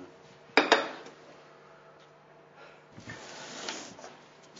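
Handling noise around a glass jar: two sharp knocks in quick succession about half a second in, then a stretch of soft rustling about three seconds in.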